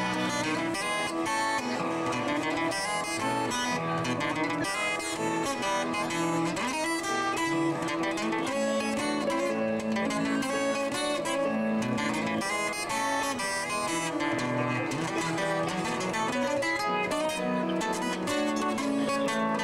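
Acoustic guitar playing an instrumental R&B warm-up, the strings plucked and strummed in a steady run of notes.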